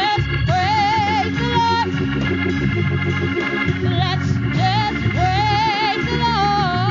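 Gospel praise singing: a lead vocalist's wavering melody with vibrato, over sustained organ accompaniment and a bass line.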